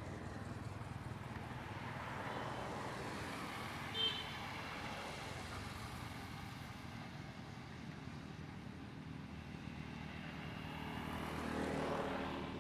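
Engine noise of passing road traffic, swelling as vehicles go by a couple of seconds in and again near the end, with one brief high squeak about four seconds in.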